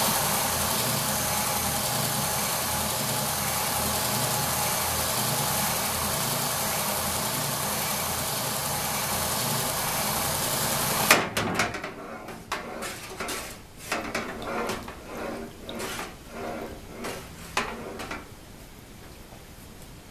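Bench belt sander grinding down the end of a polished steel linear-rail rod, a steady grinding noise. About eleven seconds in it stops abruptly, followed by quieter, irregular knocks and clatters.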